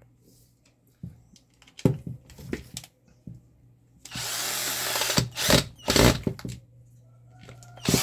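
Cordless drill-driver running for about a second, driving a small screw into a plastic hair dryer handle. Light clicks of handling come before it, and a few sharp knocks follow.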